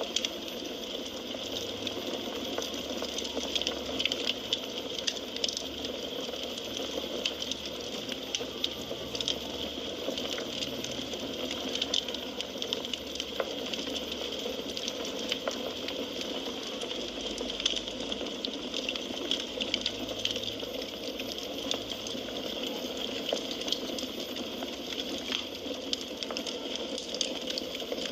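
Burning firewood crackling: a steady hiss with frequent small, sharp pops and snaps.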